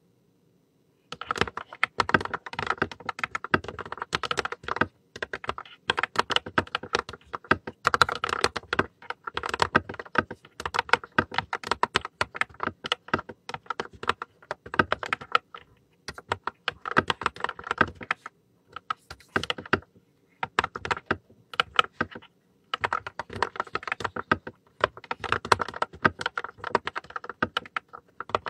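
Fast typing on a pink backlit mechanical keyboard: dense runs of key clacks, broken by short pauses every few seconds.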